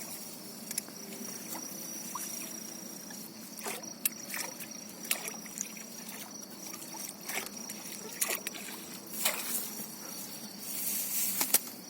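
Water sloshing and splashing as a large bighead carp is let go back into the water, with a handful of sharp splashes and a louder wash of water near the end. A steady high insect trill runs underneath.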